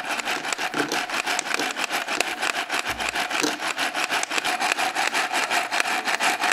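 Toy Black+Decker hand mixer running, its plastic beaters spinning in play dough, giving a steady whirr with a fast, even rattle.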